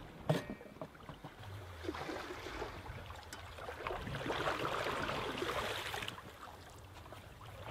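Seawater rushing and splashing along a moving sailboat's hull, with a sharp knock just after the start. The splashing swells about four seconds in as a cooking pot is dipped into the passing sea and scrubbed, then dies down after about six seconds.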